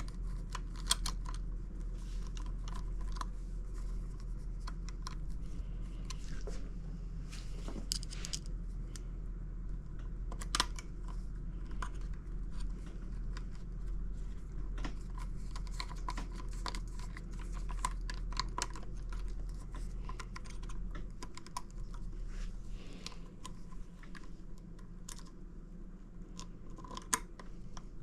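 Irregular small clicks and taps of hand tools and small parts being handled while a throttle servo and its bracket are fitted to an outboard motor, over a steady low hum.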